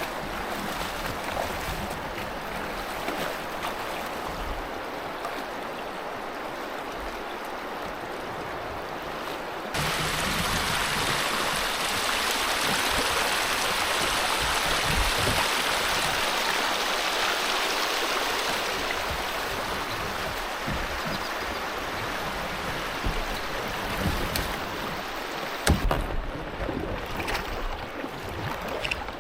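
River water rushing over rocky shoals, a steady wash that gets louder and brighter about ten seconds in and shifts again near the end.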